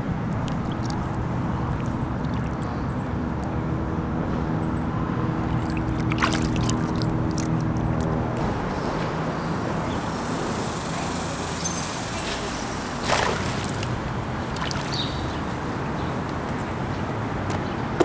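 Electric trolling motor humming at a steady pitch, stopping a little before halfway, over a constant background rush. A single sharp knock comes a little after halfway.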